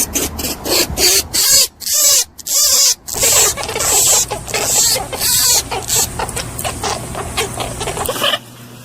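Rabbit sounds: a rapid series of short, hissy noises, a few each second, that stop suddenly near the end.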